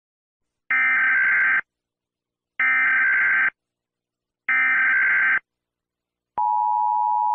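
Emergency Alert System SAME header: three identical bursts of digital data tones, each about a second long and about a second apart. Near the end the steady two-tone EAS attention signal starts. Together they mark the start of an emergency alert broadcast.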